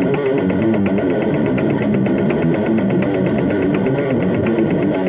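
Heavily distorted electric guitar playing a fast death metal riff, low chugging notes picked in a rapid, even rhythm.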